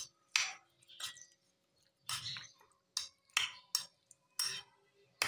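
A metal spoon stirring raw chicken cubes coated in egg and cornflour in a bowl: about eight short, irregular wet squelching and scraping strokes.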